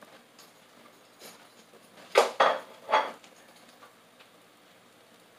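Kitchenware clattering: a light knock, then three sharp knocks close together about two seconds in, the last one ringing briefly.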